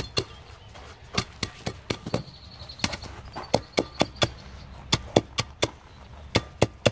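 Hand tamper striking and compacting a pea-gravel base: sharp thuds in quick runs of three or four strikes, with short pauses between the runs.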